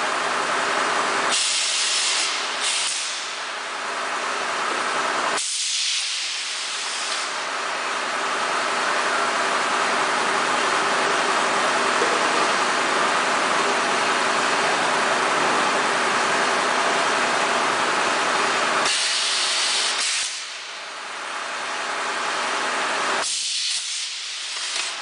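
Semi-automatic PET bottle blow moulding machine at work: a steady rush of air over a faint hum, broken by several sudden high hisses of compressed air, about a second and a half in, at five or six seconds, and twice near the end.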